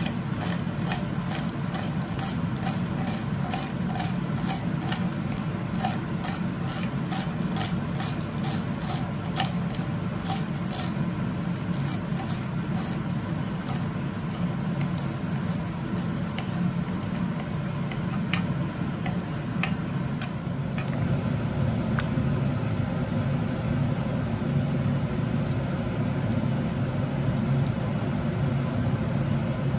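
Kitchen knife chopping celery on a plastic cutting board: sharp, regular knocks about two a second, thinning to occasional strokes about halfway through and stopping about two-thirds of the way in, over a steady low hum.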